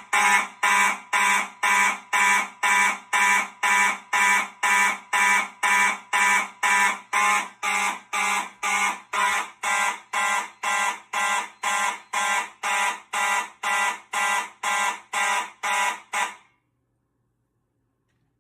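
Fire alarm horns, a Simplex 4903-9215 and a Gentex GMS-24-15/75-WR, sounding together in a March Time pattern of about two loud blasts a second, after a pull station has been pulled. About sixteen seconds in they cut off suddenly as the alarm is silenced.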